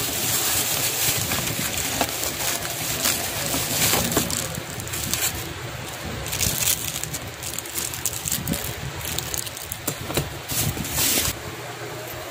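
Plastic wrapping crinkling and rustling as it is handled, in irregular crackles.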